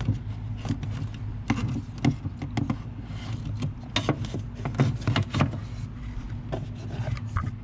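Scattered clicks, taps and knocks of hands and a phone camera being moved around under a pickup's dashboard, over a steady low hum.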